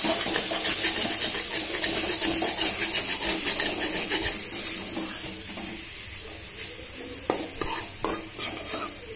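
Spatula stirring and scraping masala-coated chicken pieces in a sizzling metal kadai, dry-roasting them in oil. The sizzle dies away over the first several seconds, and a few sharp clanks of the spatula against the pan come near the end.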